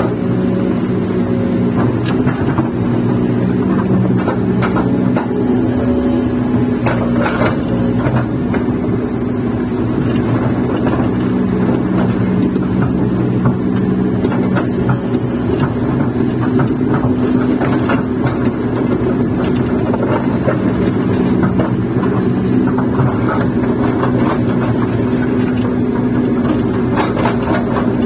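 Kobelco excavator's diesel engine running steadily, heard from inside the cab, with scattered knocks and clatter throughout.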